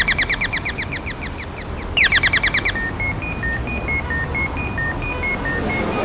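Electronic car alarm cycling through its modes. It opens with a rapid series of falling chirps, about ten a second, which fades and returns about two seconds in. It then switches to a beeping pattern of short tones stepping up and down between a few pitches, about five a second, over a low rumble.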